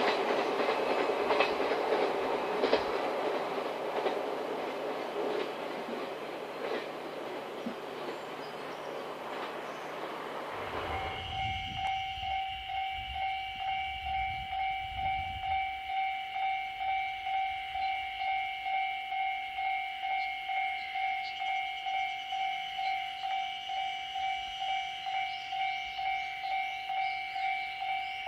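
A freight train rolling away down the line, its wheels clacking over the rail joints and the noise fading over about ten seconds. Then, after an abrupt change, a level-crossing warning bell rings steadily at about two strokes a second, the signal that a train is approaching.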